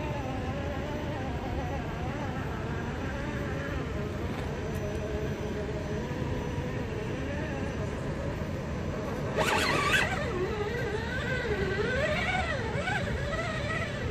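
Electric motor and gearbox whine of a Traxxas TRX-4 RC crawler, rising and falling in pitch with the throttle as it climbs rock, over a steady low rumble. About nine and a half seconds in, a brief loud burst is the loudest moment, and the whine wavers more strongly after it.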